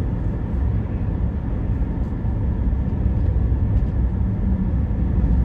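Steady low rumble of road and engine noise inside the cab of a Ram pickup truck driving at moderate speed.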